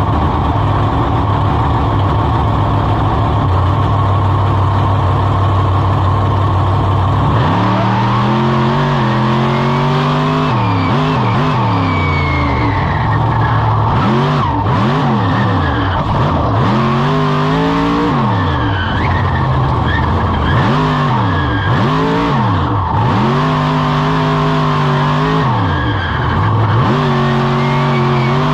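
Monster truck engine heard on board, held at a steady note for the first seven seconds or so, then revved up and down hard about ten times in quick succession as the truck is thrown around in a freestyle run.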